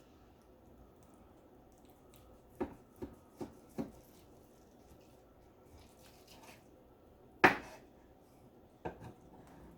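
A knife cutting a roasted stuffed chicken breast in half, knocking against the surface underneath. There are four quick knocks a few seconds in, then a louder one, then one more near the end.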